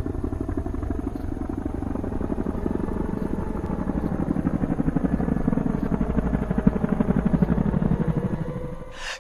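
Road and wind noise inside a vehicle cabin at highway speed, a fast, steady low throbbing that fades out near the end.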